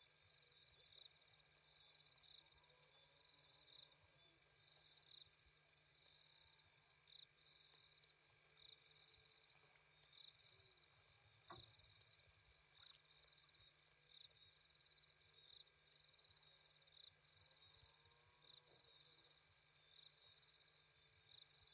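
Night insect chorus: a steady, rapidly pulsing high-pitched trill of crickets, with faint wavering calls lower down now and then and a single sharp click about halfway through.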